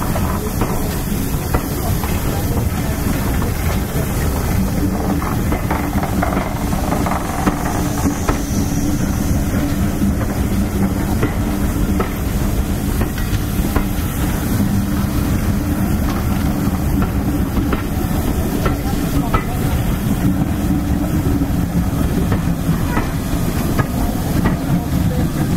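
Passenger coaches of a departing steam-hauled train rolling past at low speed, wheels clicking over the rail joints, with steam hissing from under the carriages.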